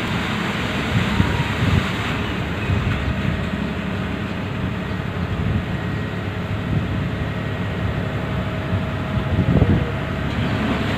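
Paddle-wheel lake-cleaning boat running, its engine and side paddle wheels churning the water in a steady, even noise.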